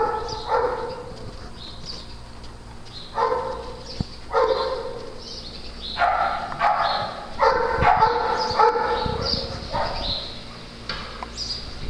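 A dog barking over and over, in short runs of one to three barks with pauses between.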